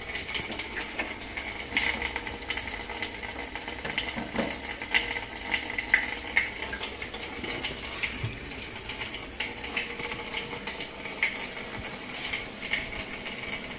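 Water running and trickling through the sink's drain pipes into an under-sink grease trap box, with scattered small ticks and splashes, during a leak test of the newly fitted trap.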